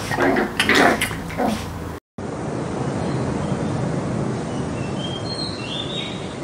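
Animal vocalizations during a wrestling fight for about two seconds, cut off abruptly. A steady hiss of outdoor noise follows, with a few faint high chirps near the end.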